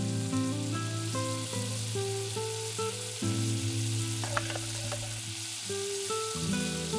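Butter sizzling as it melts in a saucepan, with a few clinks of a wire whisk against the pan about four seconds in. Plucked-guitar background music plays throughout.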